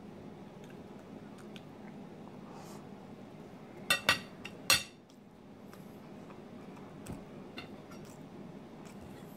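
Metal fork clinking against a plate while pancakes are being eaten: three sharp clinks close together about four seconds in, then a few fainter taps later, over a low steady hum.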